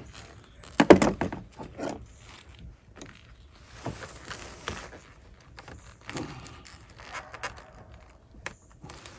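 Scattered clicks and knocks of plastic and metal engine parts being handled by gloved hands, as a MAP sensor and its connector clip are worked loose in an engine bay. The loudest knocks come about a second in, with a sharp click near the end.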